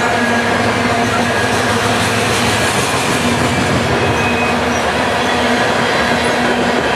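Loaded covered hopper grain cars of a freight train rolling past at speed: a steady, loud noise of steel wheels on rail, with a faint low hum that comes and goes.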